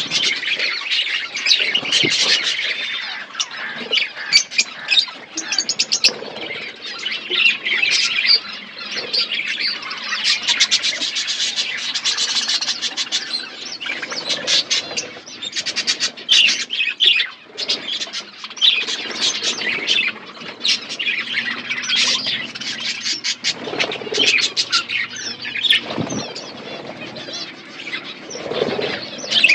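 Budgerigars chirping continuously, many short calls overlapping without a break.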